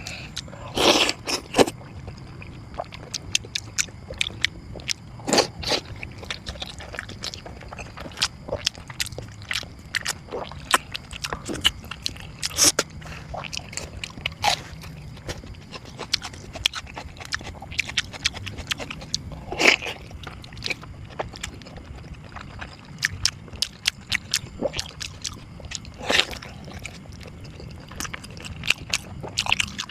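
Close-up eating: crunchy bites and chewing, with irregular sharp cracks and crackles.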